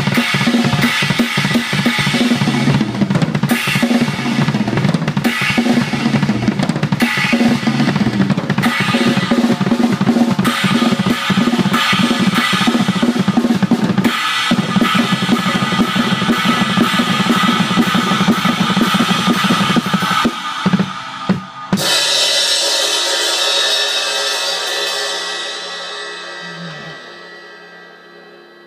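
Drum kit with Paiste cymbals played in a fast, dense freestyle of kick, snare, toms and cymbals. About twenty seconds in it breaks into a few last hits, then a final crash that rings and slowly fades away.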